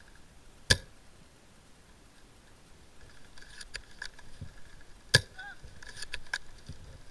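Tokyo Marui M24 spring-powered airsoft sniper rifle firing twice, two sharp cracks about four and a half seconds apart, with lighter clicks of the bolt being worked in between and after the second shot.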